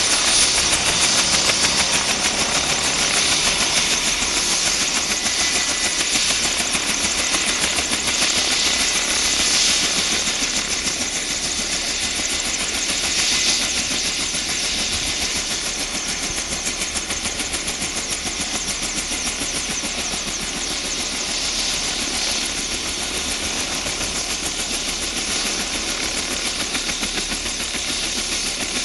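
Bell 205A-1 helicopter running on the ground with its main and tail rotors turning: the Lycoming T53 turboshaft's steady, loud hiss and whine over a fast, even beat from the rotor blades.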